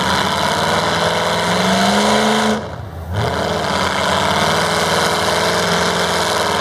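Dodge Ram pickup's engine revving under load as the truck churns through deep mud. The pitch climbs for about two and a half seconds, drops off briefly, then picks up again and holds high.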